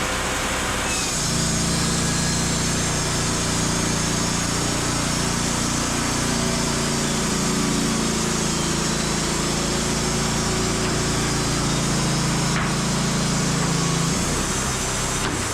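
Wood-Mizer LT35 band sawmill running, its band blade sawing through a maple log with a steady, loud machine noise. A low hum comes in about a second in and drops away near the end, as the cut goes on.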